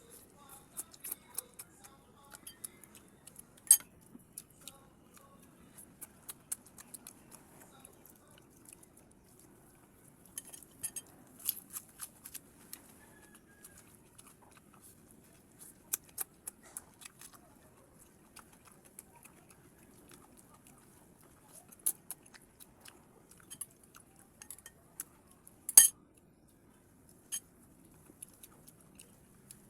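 A person eating close to the microphone: chewing, with scattered sharp clicks and taps from the meal. The loudest clicks come about four seconds in and a few seconds before the end.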